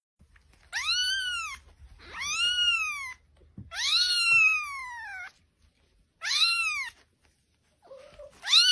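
A kitten meowing five times, each call rising then falling in pitch. The third call is the longest, and the last begins near the end.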